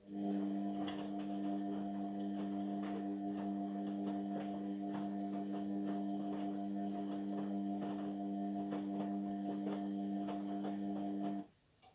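Indesit washing machine humming steadily for about eleven seconds, starting and cutting off abruptly, with light crackling ticks through it. This is the electric hum of a pump or water valve switching on and off during the sport wash cycle.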